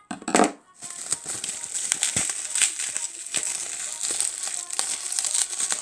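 Bubble wrap being handled and unwrapped, crinkling with dense small crackles and clicks.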